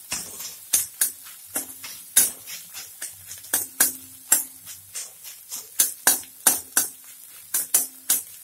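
Spatula stirring and scraping frying egg in a kadai: sharp clinks and scrapes about two or three a second, some ringing briefly.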